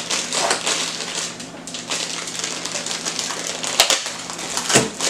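Black foil blind-box bag being crinkled and torn open by hand, with a small cardboard box being handled: irregular crackling and rustling, with two sharp snaps near the end.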